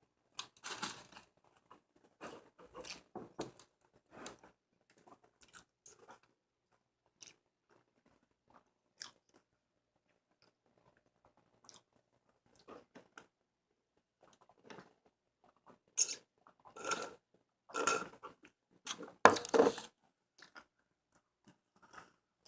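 Close-miked chewing and biting of a burger, wet mouth noises with bits of crunch, coming in short irregular spells; a louder run of bites and chews comes about three quarters of the way through.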